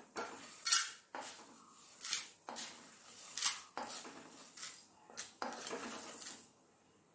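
Wooden spatula scraping roasted lentils (urad dal and parippu) across a metal kadai and tipping them into a steel bowl. The dry lentils rattle in short scoops, about six of them, roughly a second apart.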